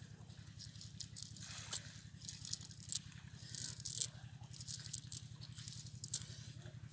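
A cast net being handled and gathered up by hand on a muddy bank, its weighted edge rattling and clicking irregularly, with a steady low hum underneath.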